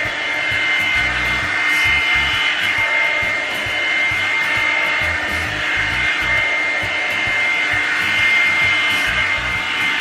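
Revlon One-Step hair dryer brush running steadily as it is drawn through a section of hair: a loud rush of air with a high, steady motor whine.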